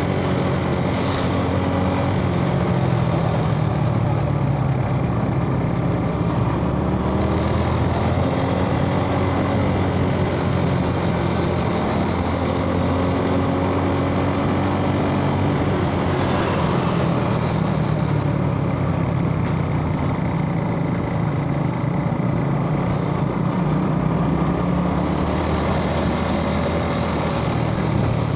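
Suzuki Smash motorcycle engine running while riding in traffic, its pitch rising and falling slowly several times as the speed changes, over steady road noise.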